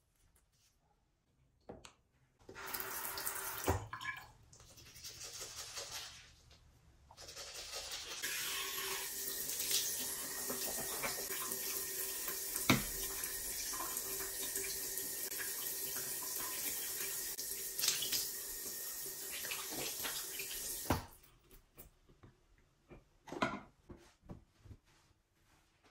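Bathroom sink tap running into the basin, with a hand rinsing under the stream. It comes on about two and a half seconds in, drops away briefly near seven seconds, then runs steadily until it is shut off suddenly about twenty-one seconds in; a few faint short handling sounds follow near the end.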